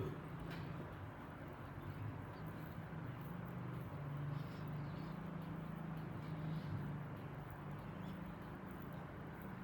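A person belching repeatedly, low drawn-out burps following one another with little pause, as trapped wind is released during a body massage.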